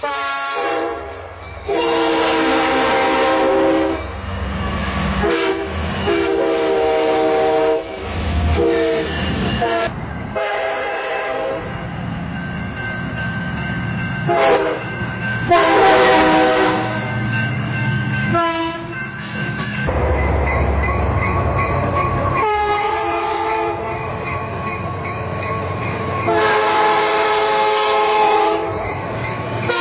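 Several back-to-back recordings of a train passing a railroad crossing. The train horn sounds repeated blasts of a multi-note chord, some short and some held for two seconds or more, over the low rumble of the train. A crossing signal bell rings in places.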